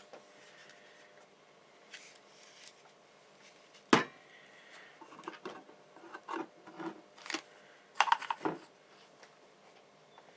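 Small hand tools and wire being handled on a workbench during soldering: light rubbing and scattered clicks, a sharp snip-like click about four seconds in and a cluster of clicks about eight seconds in.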